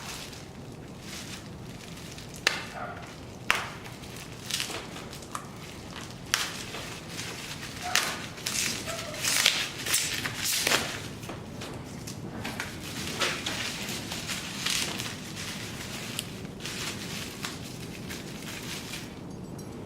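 Hands handling packing material and loose machine parts: irregular rustling and crinkling with scattered sharp clicks and small knocks, busiest in the middle.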